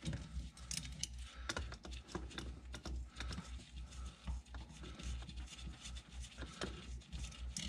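Faint, irregular small clicks, taps and rubbing as gloved hands work parts and hardware in a car's shifter tunnel, over a steady low hum.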